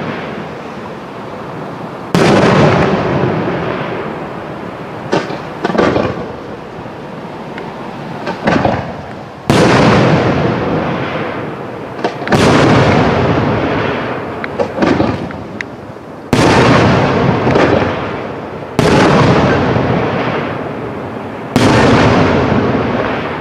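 Aerial firework shells bursting one after another: about six heavy booms a few seconds apart, each followed by a long fading rumble, with smaller, shorter pops in between.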